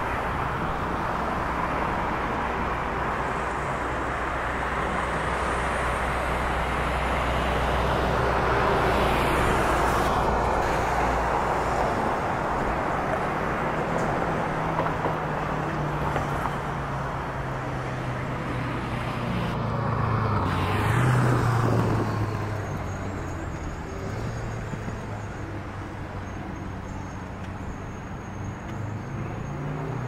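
Steady road traffic, cars going by in a continuous wash of tyre and engine noise, with one vehicle's engine passing close and loudest about twenty seconds in.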